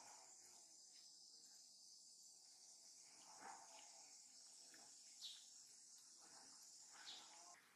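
Faint, steady high-pitched chorus of insects, with a few soft ticks over it.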